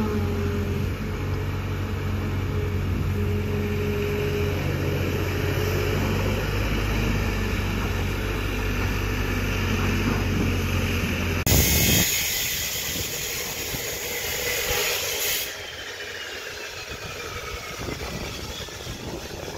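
Kobelco crawler excavator's diesel engine running steadily while it digs. Its note holds even for about eleven seconds, then cuts off abruptly into a loud hiss that lasts a few seconds before dropping to quieter outdoor noise.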